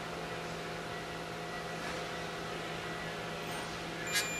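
Steady background hum, then about four seconds in a single sharp metallic click from a torque wrench tightening a pump's piston guide bolt. The click marks the wrench reaching its set torque.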